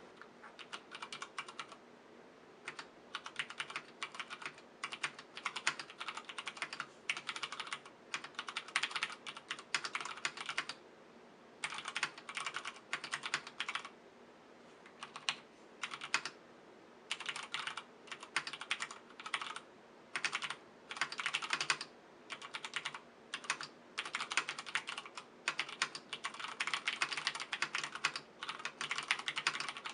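Typing on an iKBC TD108 mechanical keyboard with Cherry MX Brown switches: quick runs of key clacks in bursts, broken by short pauses.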